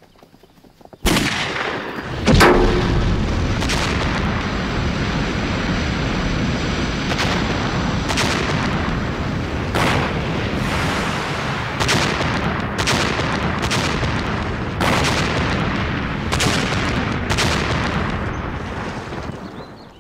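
A string of explosions and gunshots over a continuous rumble, starting about a second in. About a dozen sharp blasts come a second or so apart, the loudest about two and a half seconds in, and the rumble dies away near the end.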